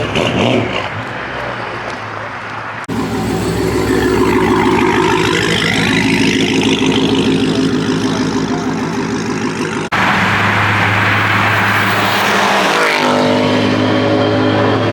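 Car engines running loud and revving, in several clips cut together, with a quick sweep in engine pitch near the end.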